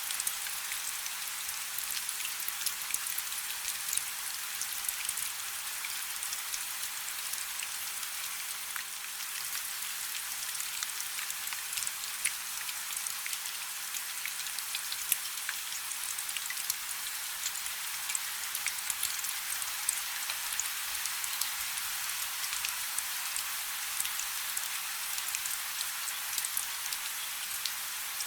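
Steady rain: an even hiss of falling rain dotted with many small, sharp ticks of individual drops striking.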